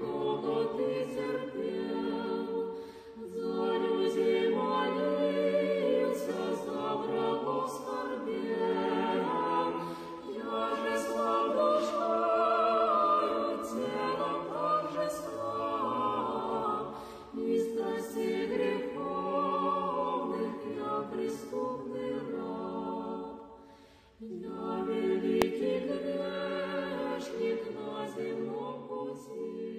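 Unaccompanied choir singing slow Orthodox church chant in several voice parts, in sustained chords phrase by phrase, with a brief break about three seconds in and another near the end.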